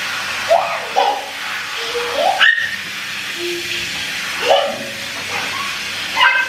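Handheld shower head spraying water onto hair with a steady hiss, while several short rising vocal squeals sound over it.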